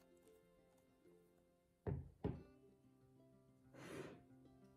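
Two quick thunks close together about two seconds in, as a Beaulieu 4008 ZM4 Super 8 camera and its zoom lens are set down on a hard table, then a short sliding rub a little before the end. Quiet background music underneath.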